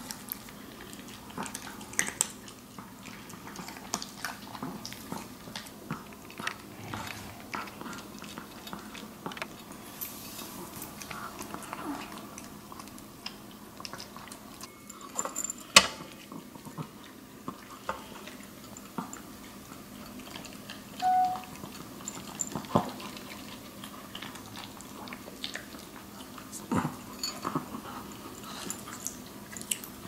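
Maltese dogs eating dry kibble from clear bowls in a raised feeder: scattered crunching and small clinks of kibble and muzzles against the bowls. There is one sharp knock about sixteen seconds in.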